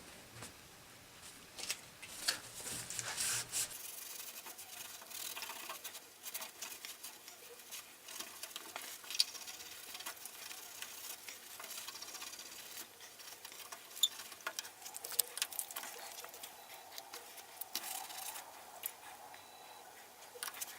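Paper towel scrubbing a home-made copper circuit board to wipe off unexposed solder-mask paint: irregular rubbing and scratching with many short, sharp scrapes.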